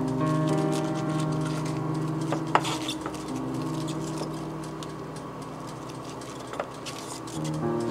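Soft background music with sustained chords that change a few times. Over it, light clicks and rustles of gloved hands handling boiled greens in a glass bowl, with one sharp click about two and a half seconds in.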